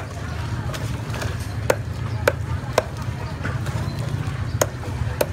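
Cleaver knocking on a wooden chopping block as fish are scaled and cut: about six sharp knocks at irregular intervals, over a steady low hum.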